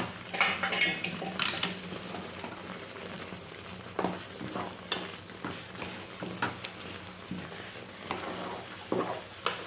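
A spoon stirring and scraping semolina (rava) in a pan as it is stirred into boiling water for upma, with a soft sizzle; a quick run of scrapes in the first couple of seconds, then occasional scrapes and taps of the spoon against the pan.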